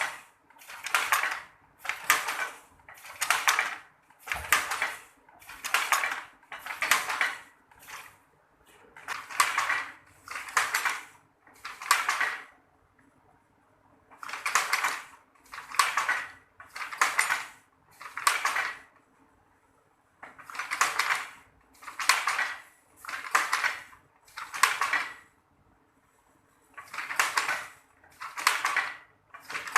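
Traditional hand-worked weaving loom weaving sarong cloth: a rhythmic clatter, one swelling stroke about every second, in runs of five or six with brief pauses between them.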